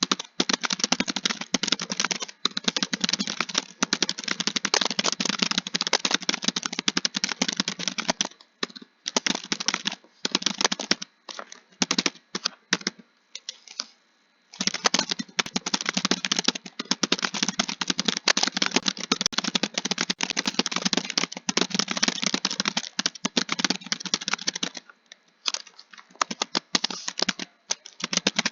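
Typing on a keyboard: fast continuous runs of key clicks, thinning to scattered keystrokes and short pauses in the middle and near the end.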